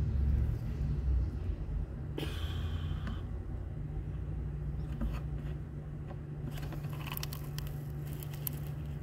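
Handling noises from a pleated cartridge oil filter element being pulled out of its housing and rubbed with a gloved thumb: a scrape about two seconds in, then a run of small crackling clicks near the end, over a steady low hum.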